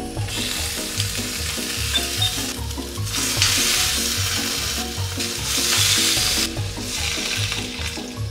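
Marinated LA-style beef short ribs sizzling in a hot frying pan, the sizzle swelling about three seconds in and again near six seconds as more slices go in.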